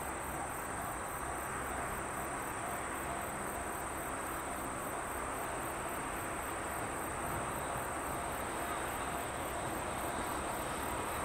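Insects trilling steadily: a high constant trill with a fast pulsing chirp above it, about four pulses a second. A low haze of an approaching electric freight train grows slightly louder near the end.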